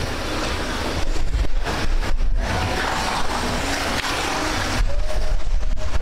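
Choppy river water rushing and splashing past a raft, with wind gusting on the microphone in uneven buffets.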